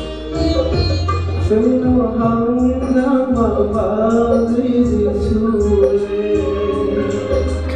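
A man singing into a handheld microphone over a recorded backing track with a steady bass beat and a high ticking hi-hat; his voice comes in about a second and a half in.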